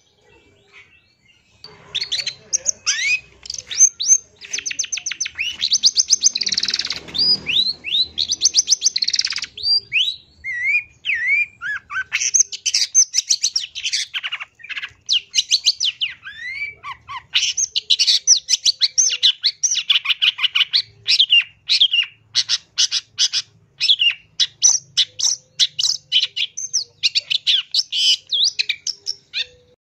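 Long-tailed shrike singing a long, fast run of short high notes and quick slurred whistles, starting about two seconds in and going in bursts with brief pauses.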